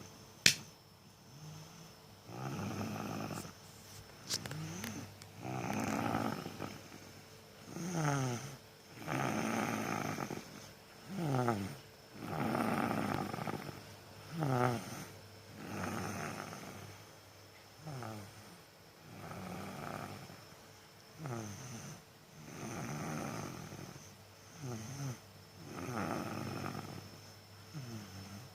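A sleeping child snoring, a rasping breath about every three seconds, several of them ending in a whistling tone that slides down. A single sharp click just after the start.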